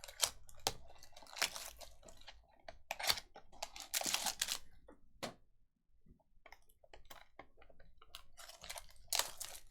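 Trading cards and their packaging being handled: a run of sharp clicks and short papery rustles and crinkles as cards are slid, flipped and set down.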